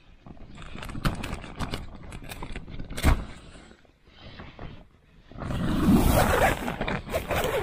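Tent fabric rustling and being handled as someone shifts about inside a tent, with a sharp knock about three seconds in and a louder, denser stretch of rustling over the last two seconds.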